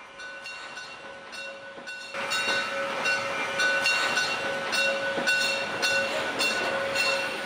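Steam-hauled passenger train rolling slowly past, with a regular metallic clicking about twice a second and a steady squeal from the wheels. It gets much louder about two seconds in.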